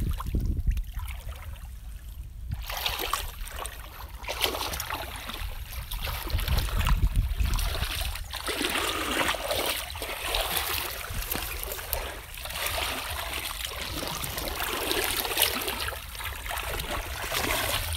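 Hands splashing and sloshing through shallow muddy water, groping in the mud, in an irregular run of splashes that becomes busy about two and a half seconds in.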